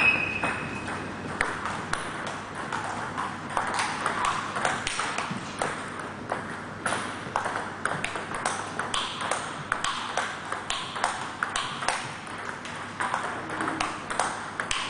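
Table tennis rally: the ball clicks sharply off bats and table in quick, regular hits. A brief high ring at the very start is the loudest sound.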